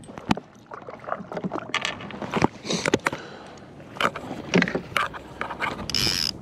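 Irregular knocks and clicks of someone moving about and handling gear aboard a fishing boat. There are two short rustling rushes, one about three seconds in and one near the end.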